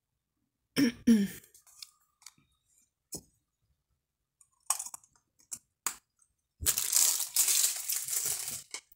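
Handling of a product's clear plastic protective bag. There is a sharp knock about a second in and a few scattered clicks, then the bag crinkles continuously for about two seconds near the end.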